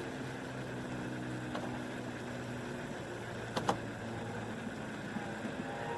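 A steady low engine hum, like a vehicle idling, with two brief clicks about three and a half seconds in.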